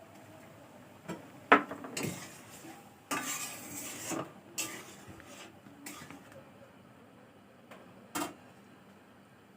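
Utensil clinking and scraping in a kadai: a handful of separate knocks and a longer scrape about three seconds in.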